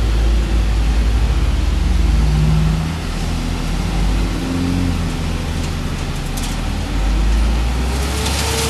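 Heavy delivery truck's engine running with a deep rumble, its pitch rising and falling as it is revved, apparently while delivering a load of gravel. A rushing, crackling noise begins near the end.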